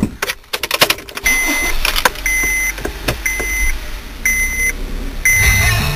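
Clicks and knocks from inside a car as it is got into, then the car's warning chime, repeating about once a second, over a low steady rumble.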